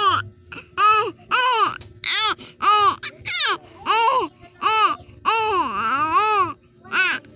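Two-month-old baby cooing: a string of short, high vocal sounds, each rising and falling in pitch, about one every half second to second, with a longer drawn-out one about two-thirds of the way through.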